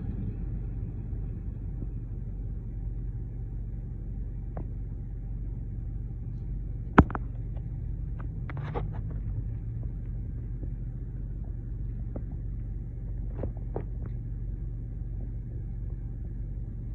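Steady low engine rumble, with one sharp click about seven seconds in and a few fainter clicks later.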